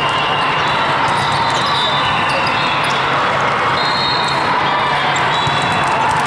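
Busy sports hall during a match: a steady din of crowd chatter, with balls hitting the floor and short high squeals over it.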